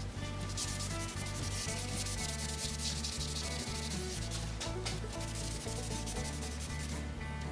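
A cloth rag rubbing back and forth over bare pine boards to wipe off an old finish, a steady scrubbing hiss. It runs under background music with a stepping bass line.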